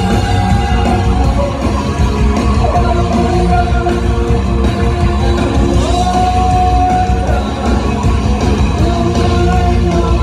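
Live rock band playing loudly, with bass guitar and drums under a woman singing and shouting into a microphone. She holds long notes twice, about a third of the way in and again past the middle.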